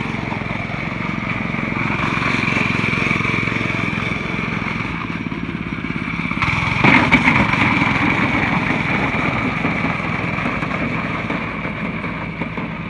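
Small gasoline engine of a child's mini go-kart running steadily, getting louder for a moment about seven seconds in.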